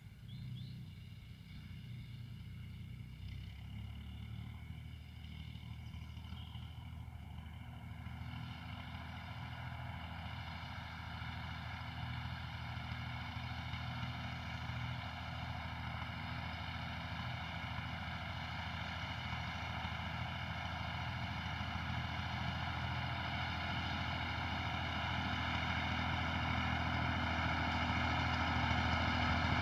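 Massey Ferguson 135 tractor engine running steadily at working speed, growing steadily louder as the tractor approaches.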